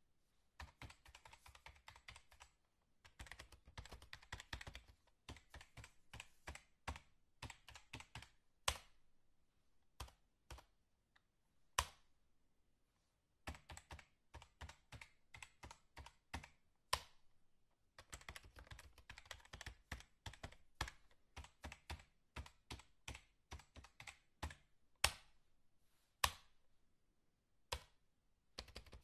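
Rapid typing on a computer keyboard: flurries of quick key clicks with short pauses between them, and now and then a single louder keystroke.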